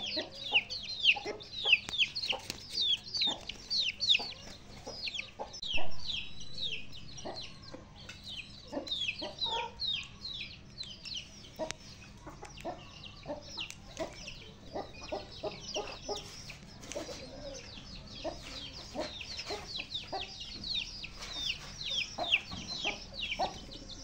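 Chicks peeping without pause, a dense run of short, high, falling chirps, over hens and roosters clucking lower down.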